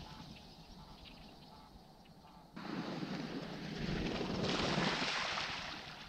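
Wind buffeting the microphone: a rushing noise that jumps up suddenly about two and a half seconds in, then swells to its loudest near the end before easing off.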